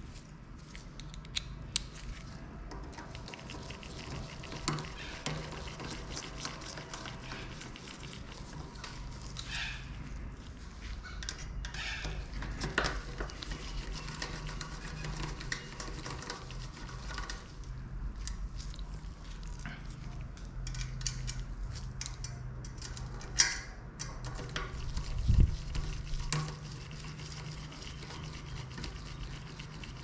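Small metallic clicks and taps, scattered and irregular, as a hand tool works the bolts on a mountain bike's rear disc brake caliper and rotor, over a low steady hum. Two sharper knocks stand out a little past the middle.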